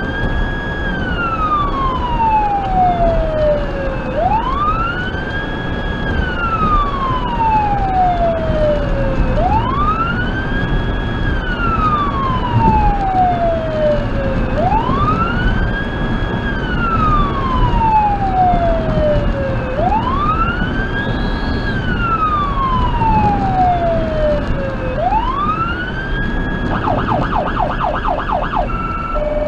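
Federal Signal Touchmaster Delta electronic siren, through dual 100-watt speakers, sounding a wail: each cycle climbs to a peak, holds briefly and falls over about five seconds, six times, over the vehicle's road noise. Near the end it switches to a rapid, fast-cycling tone.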